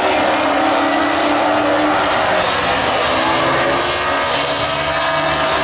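Several Baby Grand stock car engines running at once as the field laps an oval track, a steady, loud mix of engine tones.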